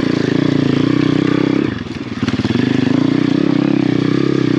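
Pit bike's 150cc single-cylinder four-stroke engine running under throttle as the bike crawls through brush and slash. The throttle is eased off and the engine quiets briefly about two seconds in, then comes back on.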